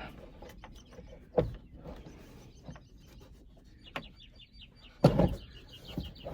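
Scattered knocks and clicks, the loudest about a second and a half in and again near five seconds in. A bird gives a rapid trill of short high notes just before the second knock.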